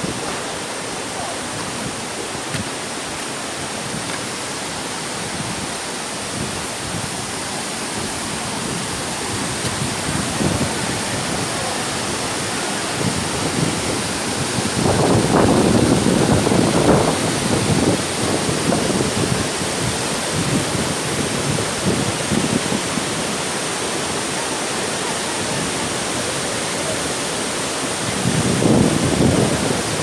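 Tumpak Sewu's tall curtain of waterfalls, a steady rush of falling water and spray, with louder low gusts about halfway through and near the end.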